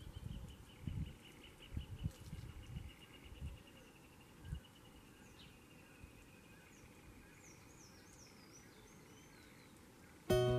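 Faint outdoor ambience. Irregular low thumps run through the first half. A faint rapid trill slowly falls in pitch over the first four seconds, then a few short high bird chirps follow. Music starts abruptly right at the end.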